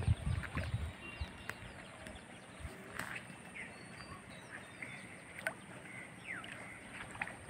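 Outdoor ambience with scattered short bird calls and chirps, and a few low bumps in the first second.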